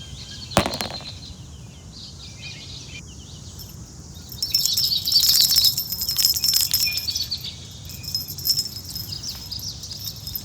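Small birds chirping, thickest in the middle of the stretch, with a single click shortly after the start.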